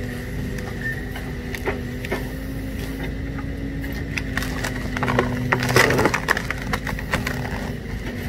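Tree stump wood cracking and splintering as the jaws of a Green Attachments RAC 08 hydraulic stump shear crush into it, with a cluster of louder cracks about six seconds in. The excavator carrying the shear hums steadily underneath.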